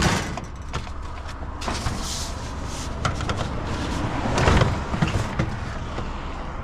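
Loading curbside scrap into a pickup: a sharp knock as the item is set down, then scattered clunks and rustling, with a heavier thump about four and a half seconds in.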